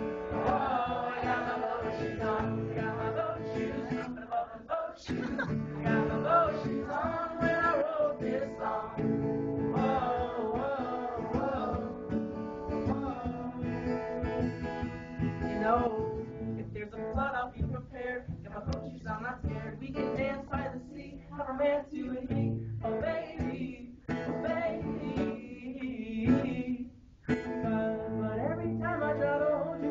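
Acoustic guitar strummed steadily while a man sings a song over it, the music dropping out for a moment near the end.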